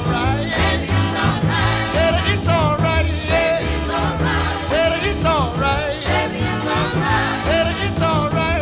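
Oldies-era rhythm-and-blues or rock-and-roll band music with a steady pulsing bass-and-drum beat and sliding melody lines, vocal or horn, without clear words.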